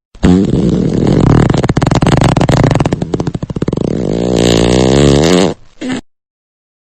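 Long, loud fart sound effect, rough and rapidly fluttering, ending with a short sputter about six seconds in.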